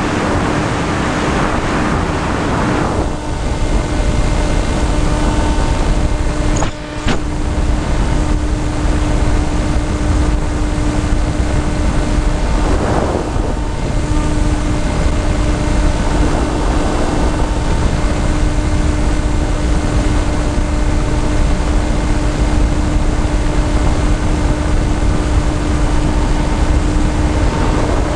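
Wind rushing over the microphone of a camera mounted on a radio-controlled model aircraft in flight, over the steady hum of its motor and propeller. The hum drops out briefly about halfway through.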